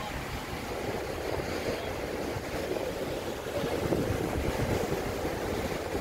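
Sea surf breaking and washing over a rocky shore, a steady rushing wash that swells louder a little past the middle as a wave breaks.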